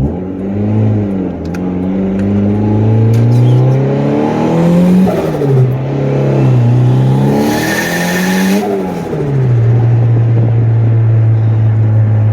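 Turbocharged Honda Accord engine accelerating hard through the gears, its pitch climbing and falling back at each shift. The tyres spin in second gear as the turbo comes onto boost. A burst of hissing comes about eight seconds in, and then the engine settles to a steady, even pitch.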